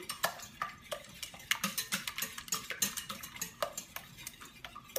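Fork beating raw eggs in a glass mixing bowl: a fast, uneven run of clinks as the tines strike the glass, with wet stirring between them.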